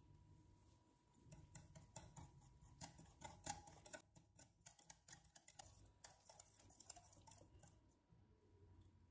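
Faint, rapid, irregular clicking of a wire whisk's metal wires against a glass bowl while stirring bread crumbs into an egg and milk batter. It starts about a second in, is busiest in the middle, and thins out near the end.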